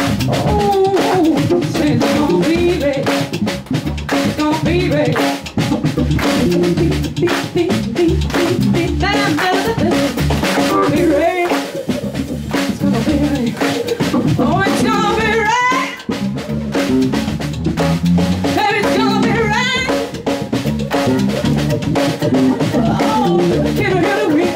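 Live band music: a drum kit with bass drum, snare and rimshots keeps a steady beat under bass and electric guitar. Bending, wavering guitar lines come and go above it, with no words sung.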